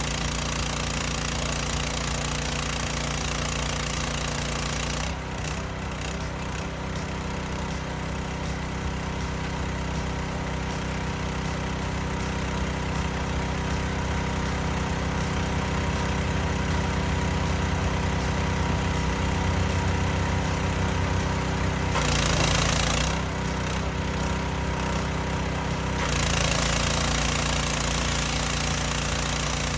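Power Horse hot water pressure washer running: its engine drones steadily under a hiss of high-pressure spray. The hiss drops away about five seconds in, comes back briefly a little after twenty seconds, and returns near the end.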